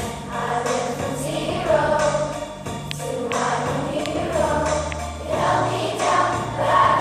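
Fifth-grade children's choir singing a song in unison over an instrumental accompaniment, whose low bass notes change every second or two.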